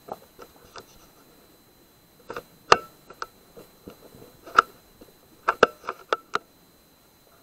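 Irregular sharp clicks and knocks of an air rifle being handled and moved, picked up by the microphone of the scope-mounted night-vision recorder. The loudest come about two and a half seconds in, again about four and a half seconds in, and as a quick run of four near the end.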